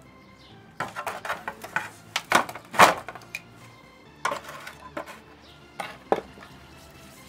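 Metal-on-metal clinking as a freshly cast brass dollar sign is handled with steel tongs and set down in a metal tray: a quick run of clinks and knocks over about two seconds, the loudest near the end of the run, then a few separate knocks.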